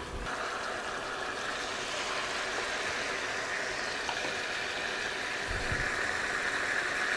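Hot butter and avocado oil sizzling steadily in a skillet as browned ground-beef patties are lifted out, with a soft low thump about five and a half seconds in.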